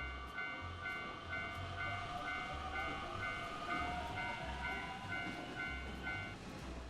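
Japanese railroad crossing bell ringing a steady two-tone clang about twice a second, over the low rumble and clatter of a passing train. The bell stops near the end.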